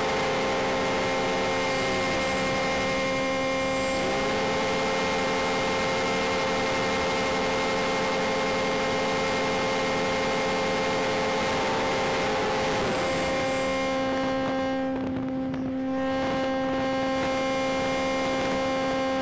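Motors of a radio-controlled model C-124 Globemaster heard from on board in flight: a steady whine of several tones over a rush of air. The pitch falls about two seconds in, rises again about four seconds in, and falls again around thirteen seconds in as the throttle is eased and opened.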